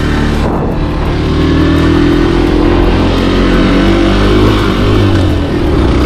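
Motorcycle engine running while riding, rising in pitch about a second in as it speeds up, then holding steady with a brief dip and recovery about five seconds in.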